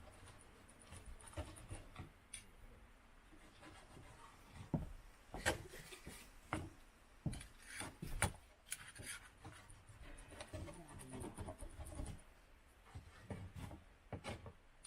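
Knife slicing a grilled steak: faint irregular scraping strokes with scattered sharp knocks.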